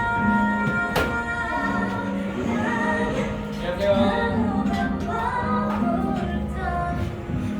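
Background music with a woman singing over a steady bass line, and a sharp click about a second in.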